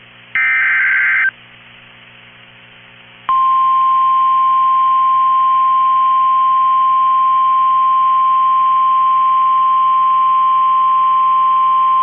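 NOAA Weather Radio emergency alert: the last one-second screech of the SAME digital header burst, then about two seconds of quiet. About three seconds in, the steady 1050 Hz weather radio warning alarm tone starts, announcing a severe thunderstorm warning.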